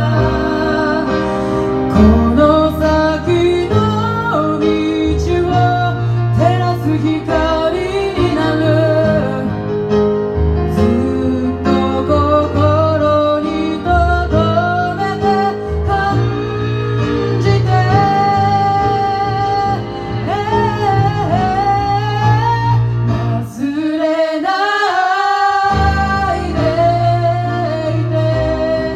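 A Japanese song sung live: female singing over instrumental accompaniment. The low accompaniment drops out for a couple of seconds about 24 seconds in, and the singing carries on.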